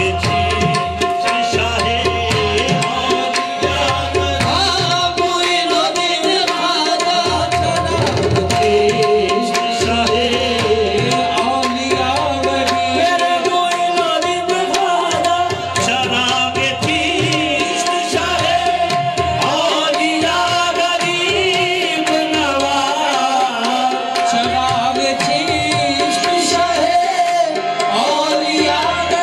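Live qawwali: harmoniums holding a steady drone under sung melody from the qawwal party, driven by a steady hand-drum rhythm.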